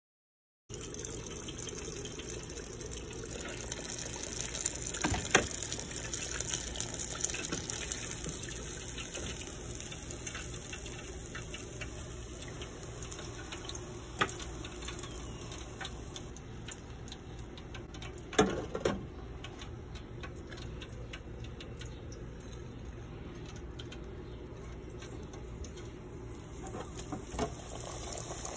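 Breaded fish fillets deep-frying in an electric deep fryer: hot oil sizzling and bubbling with fine crackling, broken by a few sharp knocks, the loudest about 18 seconds in.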